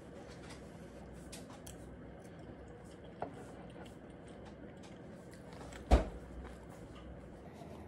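Quiet indoor handling sounds: a few light clicks, a small knock about three seconds in, and one sharp, loud knock about six seconds in, like something hard being set down or a cupboard door shutting.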